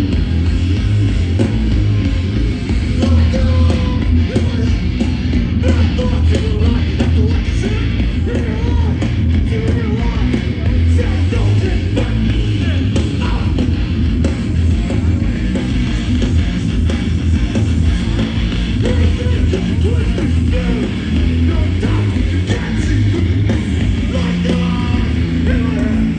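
Live hardcore punk band playing loud, heavy music with guitar and drums, and a strong low end throughout.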